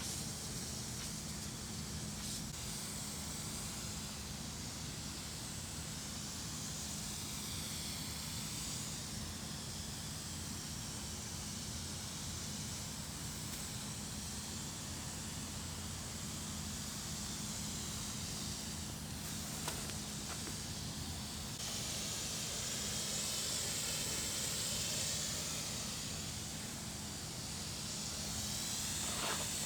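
Herbicide sprayer spraying liquid in a steady hiss that swells louder about two-thirds of the way in and again near the end, over a steady low hum.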